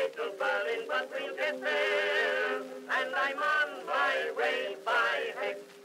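Music with a man singing a wavering, held melody with vibrato.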